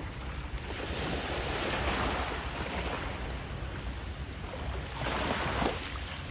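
Small waves washing against the shore, with two swells of hissing wash: a longer one starting about a second in, and a shorter, louder one near the end. Underneath runs a steady low rumble.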